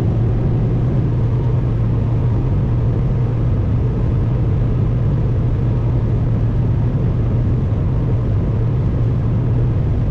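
Combine harvester running steadily while harvesting corn: a constant low engine drone with even machine noise over it.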